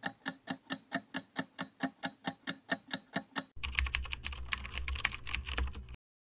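Computer-keyboard typing sound effect. It starts with even key clicks, about four or five a second, then changes about three and a half seconds in to faster, denser clattering over a low hum, which cuts off suddenly about six seconds in.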